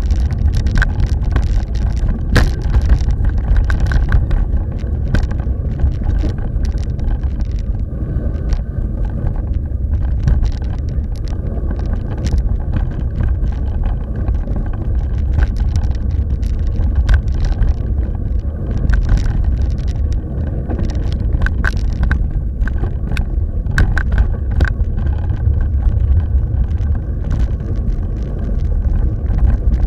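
Mountain bike riding over a rough gravel dirt track: a constant low rumble of tyres and wind buffeting the microphone, with frequent sharp clicks and rattles from the bike over bumps.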